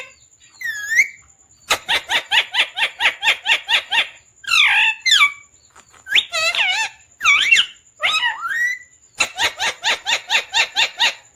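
Pet parrot calling: two fast runs of short repeated chirps, about four a second, with rising and falling whistled squawks between them.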